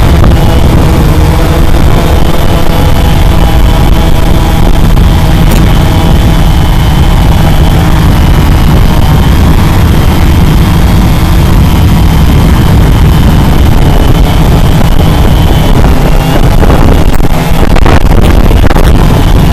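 Cheerson CX-20 quadcopter's brushless motors and propellers running steadily in flight, heard close up from its onboard camera: a steady multi-toned whine over a heavy low rumble of prop wash on the microphone.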